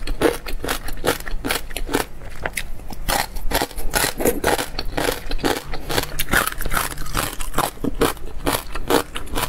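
Close-miked crunchy chewing of gongcai (celtuce stem strips): a rapid, irregular run of crisp crunches and mouth clicks.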